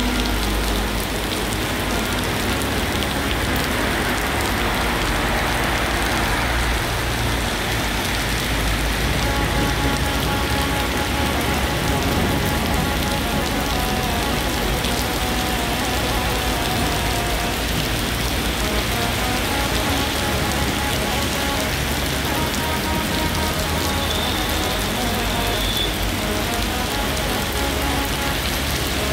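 Steady rain falling on wet streets and pavement, an even hiss that holds throughout, with soft background music of long held notes underneath.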